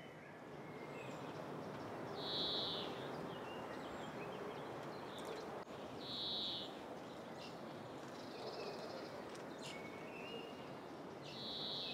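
Faint outdoor aviary ambience: a steady soft hiss with three short, high-pitched bird calls about four seconds apart, and a few faint clicks.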